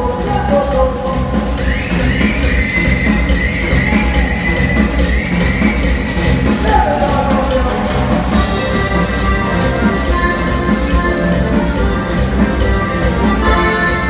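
Live tropical cumbia band playing an instrumental passage: accordion and guitar melody lines over congas and a steady percussion beat.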